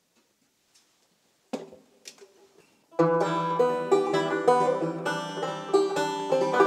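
A couple of knocks and brief stray string ringing as a banjo is handled, then banjo picking starts about three seconds in and carries on in a steady, rhythmic pattern.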